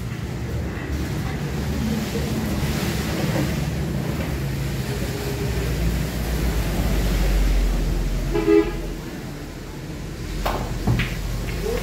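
A short vehicle horn toot about eight and a half seconds in, over a steady low rumble of traffic. Two sharp clicks come near the end.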